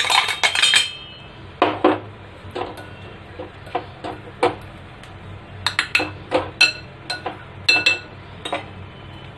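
Metal spoon knocking and scraping in a steel mixer-grinder jar as powder is tipped out, a quick cluster of clinks in the first second. Then a spoon stirring through spice powder in a glass bowl, clinking against the glass every half second or so, some clinks with a short ring.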